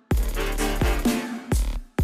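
Electronic dubstep-style music with heavy bass and sharp drum hits. It stops abruptly for a moment near the end.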